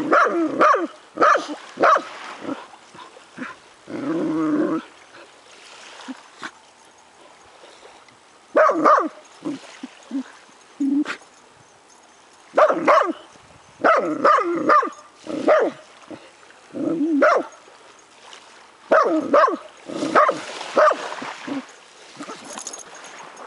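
A potcake dog barking and yipping in quick bunches of short calls, with one longer, drawn-out call about four seconds in, as it digs after a crab in its burrow in the sand.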